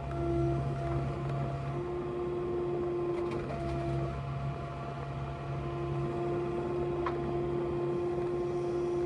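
Heavy-machinery diesel engine running steadily under load, with a steady whine above it that drops out briefly a few times.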